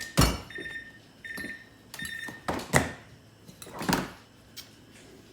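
Refrigerator's door-open alarm beeping, short high tones about once every 0.8 s, warning that the door has been left open; the beeps stop about a second and a half in. Three loud knocks are heard, the first right at the start and the loudest near the middle.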